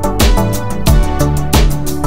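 Background music with a steady drum beat under sustained pitched tones.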